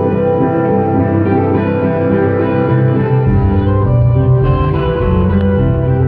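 Live band playing an instrumental passage between sung lines, with electric guitars holding sustained notes; a deep bass part comes in about three seconds in.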